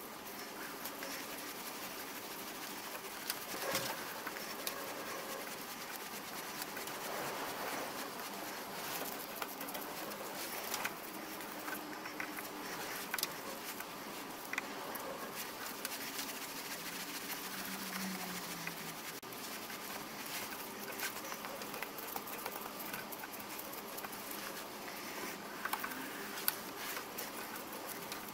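Small scattered clicks and scrapes of hand-tapping a 4BA thread with a plug tap in a tap wrench, and of tools being handled, played back fast at four times speed over a steady hiss.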